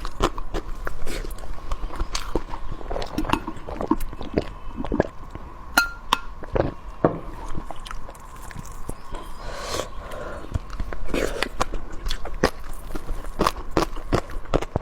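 Close-miked chewing and biting of food: a person eating, with many irregular sharp clicks and short crunchy strokes.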